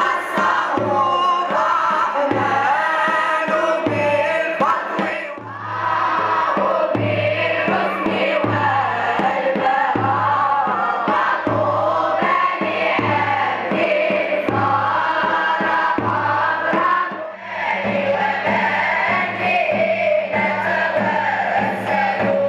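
Children's choir chanting a Sufi devotional song together, over steady low beats of a large rope-tensioned double-headed drum. The singing breaks off briefly twice between phrases.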